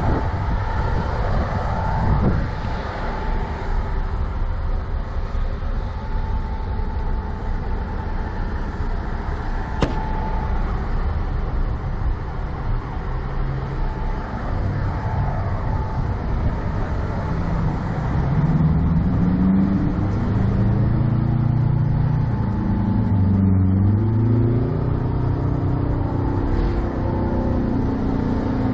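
Vehicle engines running over a steady background noise. From about two-thirds of the way in, one engine revs up and down several times.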